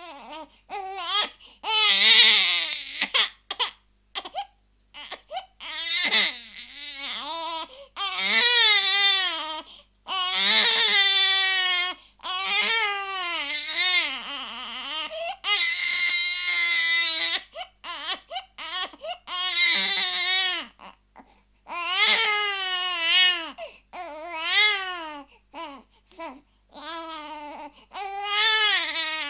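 A baby crying: repeated high-pitched wails of a second or two each, broken by short gasps for breath, the pitch rising and falling within each cry.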